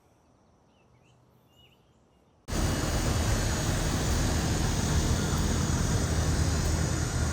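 A few faint bird chirps over quiet outdoor air, then about two and a half seconds in an abrupt jump to a loud, steady rushing noise with a low hum underneath.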